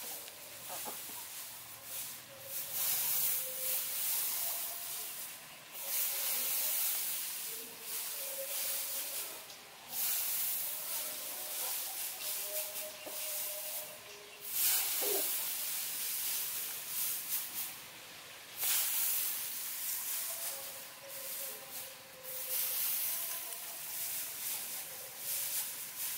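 Dry rice straw rustling as it is scooped up and heaped by hand, in a run of handfuls a few seconds each with short pauses between.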